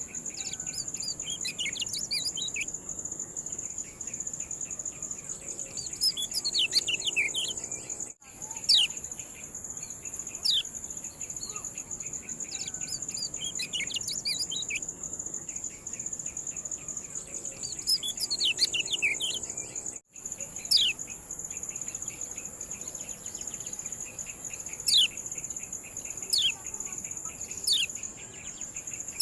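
Kecial kuning giving its 'ciak' call: repeated sharp, steeply falling chirps in irregular clusters. Under them runs a steady high-pitched buzz with a fast ticking pattern. The sound drops out for an instant twice, near 8 and 20 seconds.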